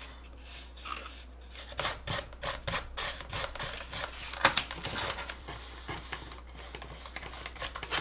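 Paintbrush scrubbing and dabbing paint onto textured foam in a run of short, irregular scratchy strokes, over a steady low hum.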